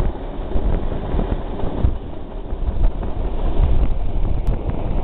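Train running along the line, heard from a carriage window: a steady low rumble of wheels on track, with wind buffeting the microphone.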